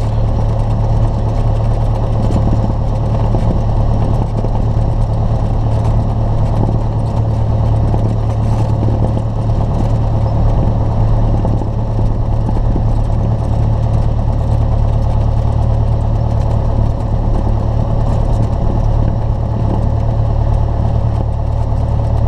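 Cessna 172's piston engine running steadily at low power while the plane taxis, a constant drone with no change in pitch.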